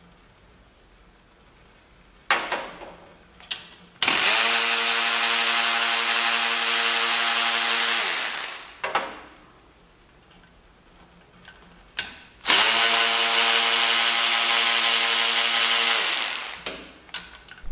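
Electric ratchet running in two steady bursts of about four seconds each, spinning out the long 10 mm oil pan bolts one after another, with a few short clicks and knocks of handling between the runs.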